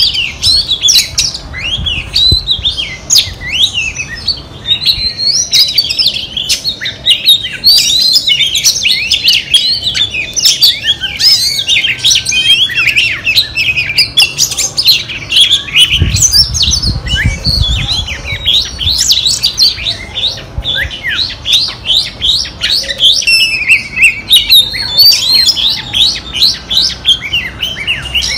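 Female oriental magpie-robin singing a long, unbroken run of quick, varied whistled and chirped phrases, the kind of hen song keepers play to stir a male into singing. A brief low rumble comes about halfway through.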